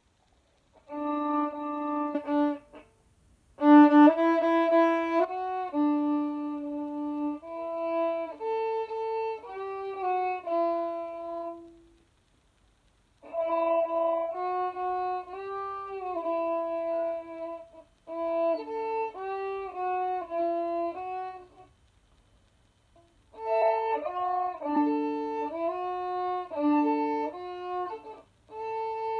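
Violin played with the bow by a beginner: a simple, slow, stepwise tune of held single notes, in phrases with short breaks between them.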